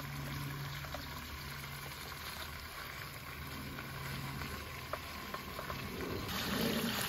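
Pieces of quail frying in hot oil in a pan: a steady sizzle with a few light clicks, the sizzle growing louder about six seconds in.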